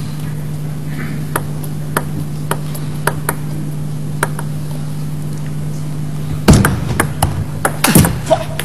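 Table tennis ball clicking off bats and table in a rally, about two hits a second, over a steady low hum. Two louder short bursts of sound follow, about six and a half and eight seconds in.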